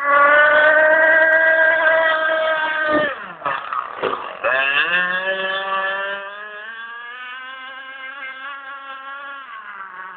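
Radio-controlled speedboat's motor running at high speed with a high, steady note. A few seconds in the note breaks and drops as the boat eases off, then climbs again as it speeds up, and grows fainter as the boat runs away across the lake.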